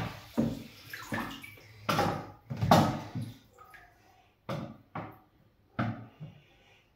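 About seven irregular knocks and clatters as a stainless-steel wire bath rack is handled and set across the rim of a filled bathtub, with light water sloshing. The knocks are louder in the first half and sharper and more widely spaced near the end.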